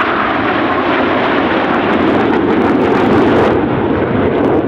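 Jet noise from a formation of KAI T-50B Golden Eagle trainers flying past, a loud steady rush whose pitch slides slowly lower as they go by.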